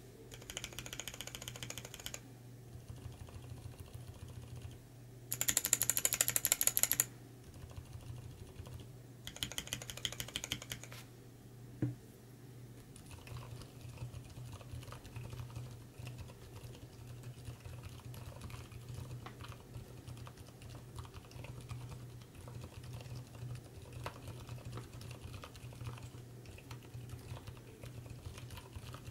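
Keys on a switch tester holding Cherry MX Red and Kailh BOX White switches are pressed rapidly in three short bursts over the first dozen seconds, the middle burst loudest. From about 13 seconds in comes steady, quieter typing on a YMDK68 aluminium-case mechanical keyboard. The keyboard is fitted with hybrid Zilent v2 tactile silent switches (Cherry MX housing, Zilent v2 stem, 67 g spring) and silenced Cherry plate-mount stabilizers.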